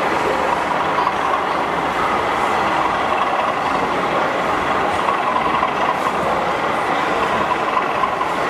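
Model diesel locomotive running along a model railway layout, giving a steady engine-like drone with train running noise.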